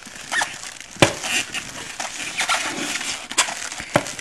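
Crinkling and rustling of packaging as a small boxed accessory, a remote bass level knob, is unwrapped by hand, with several sharp clicks and knocks, the loudest about a second in.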